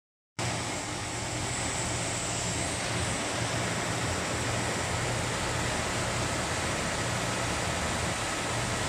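MNTOOLS MTWBS1300R-R wide-belt sanding machine running as a laminated wood board feeds in on its roller conveyor: a steady rushing noise over a low hum.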